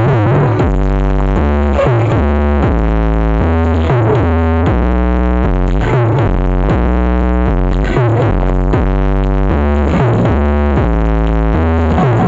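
Electronic dance remix in pargoy style played loud through a large BMS Audio sound system. A deep bass line steps between notes about twice a second, with a sweeping synth sound every couple of seconds.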